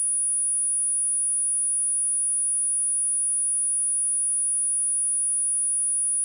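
A steady, unbroken 9752 Hz sine-wave test tone: one pure, high-pitched whistle with no overtones, used to test speakers and to shake water and dust out of them.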